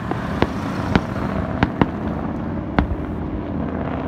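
Fireworks going off: about six sharp bangs at irregular intervals, two of them close together in the middle, over a steady low background noise.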